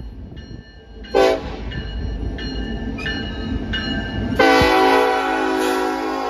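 Norfolk Southern SD70ACe diesel locomotive passing close with its air horn sounding: a short toot about a second in, then a long blast starting a little past four seconds. In between, its bell rings about every two-thirds of a second over the low rumble of the engines.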